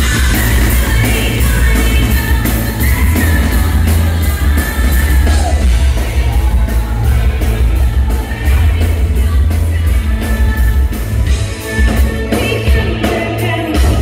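Noise-pop band playing live and loud through a PA in a large hall, recorded from the crowd: electric guitar and heavy bass over a steady beat, with a woman singing into a microphone.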